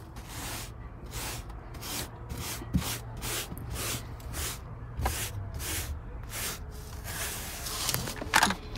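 Stiff-bristled hand scrub brush sweeping back and forth across car floor carpet, brushing loose crumbs together, in quick strokes of about three a second.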